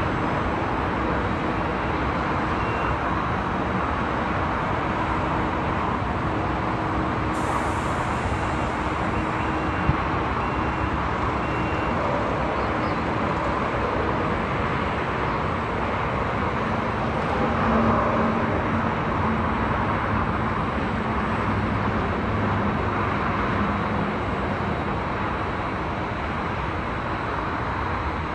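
Steady highway traffic noise from cars and trucks: an even wash of road noise with no single vehicle standing out, swelling slightly a little past the middle.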